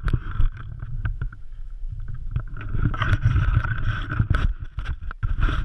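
Wind buffeting the camera microphone, a low rumble broken by frequent knocks of handling noise, which cuts off suddenly at the end.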